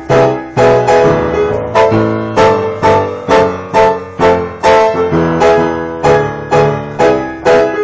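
Piano chords struck in a steady rhythm about twice a second, each ringing and fading before the next, moving through a harmonized run.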